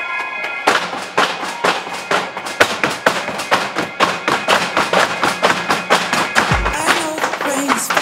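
Tap shoes from a group of tap dancers striking a wooden stage in quick rhythmic clusters, over a loud pop song; the taps start about a second in.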